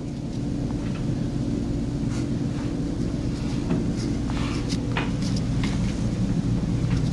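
Steady low mechanical hum of room equipment, such as ventilation, with a few faint clicks and knocks.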